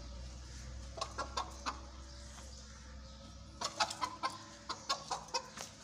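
Hen clucking in short notes while children try to catch it in its wire-mesh coop: a few clucks about a second in, then a quick run of them in the last two seconds.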